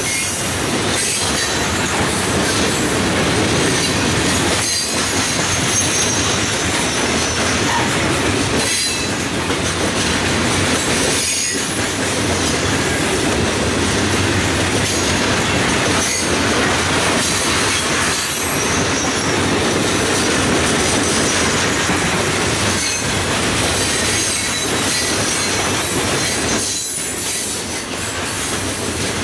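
Freight train of steel open-top hopper cars rolling past: a steady rumble and clatter of wheels over the rails, with some high wheel squeal.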